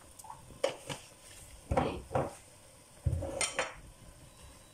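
Kitchenware clatter: a string of separate sharp knocks and clinks, with the loudest cluster about three seconds in.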